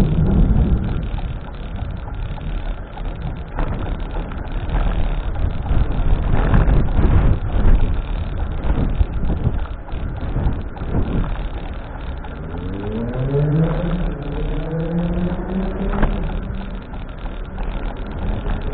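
Road traffic running past, with steady rumble and noise. About two-thirds of the way through, a vehicle engine rises in pitch as it accelerates.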